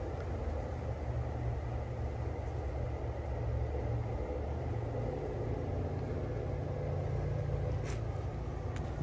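Air conditioner running, a steady low hum, with a couple of faint clicks near the end.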